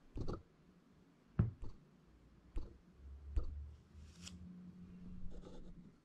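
Quiet room tone with about half a dozen scattered light clicks and knocks, and a faint low hum in the second half.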